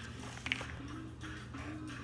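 Music playing a simple melody of held notes over a steady low hum, with one sharp click about half a second in.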